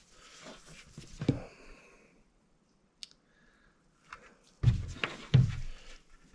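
Handling noises from working on a helmet face shield: soft rubbing over the first couple of seconds, a single small click about three seconds in, and two louder knocks near the end.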